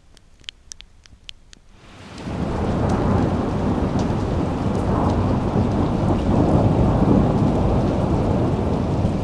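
A few sharp ticks, then about two seconds in a loud, steady heavy rain sets in with a deep rumble of thunder under it.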